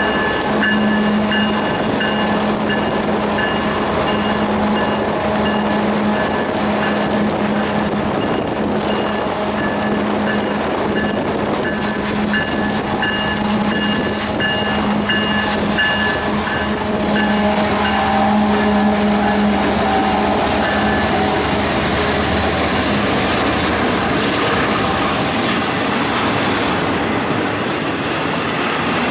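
Ferromex diesel freight locomotives passing close by, with a steady engine hum and a high, pulsing tone over the rumble. After about 20 seconds both fade and the noisier rolling of double-stack container cars on the rails takes over.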